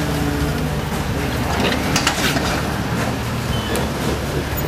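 A 4x4 rock crawler's engine running steadily on the trail, with a brief burst of scraping and knocking about two seconds in.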